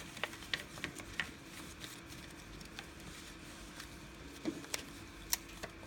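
A printed paper sheet being folded into a paper airplane on a glass tabletop: scattered crinkles and sharp taps as creases are pressed flat, over a faint steady hum.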